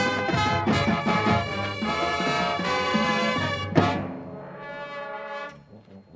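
Marching band brass and drums playing loudly, closing on a sharp accented hit about four seconds in, after which a softer held brass chord dies away.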